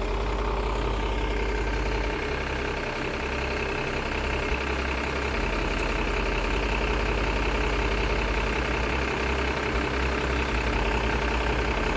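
A large diesel engine idling steadily, a constant drone with no change in speed.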